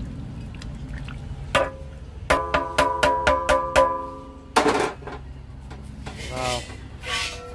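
Metal ladle knocking against a large brass cooking pot (pital handi), ringing with each strike: one knock about a second and a half in, then a quick run of about seven. A short scrape follows.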